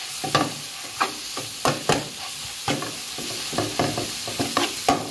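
Rice noodles stir-fried in a black non-stick wok over high heat: a steady sizzle, broken by irregular scrapes and knocks of a metal spatula against the pan as the noodles are tossed.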